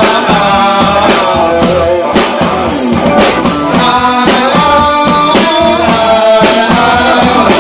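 Live rock band playing loud, with a steady drum beat, guitar and singing.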